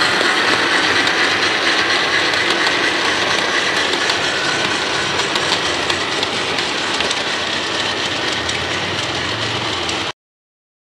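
Model goods train running along the layout's track, a steady rattle of wheels on rail that slowly gets quieter and then cuts off suddenly near the end.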